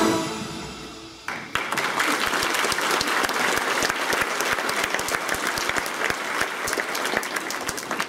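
Dance music stops and dies away, then a large audience of schoolchildren starts clapping about a second in and keeps up steady applause.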